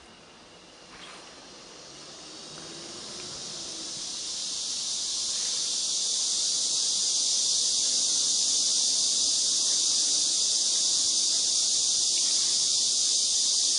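A steady high-pitched hiss that swells in over the first several seconds and then holds at an even level.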